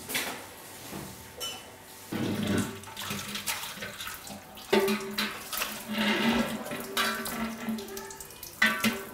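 Water running from a tap into a sink and a large stainless steel cooking pot as the pot is rinsed, with a few metallic knocks of the pot against the sink.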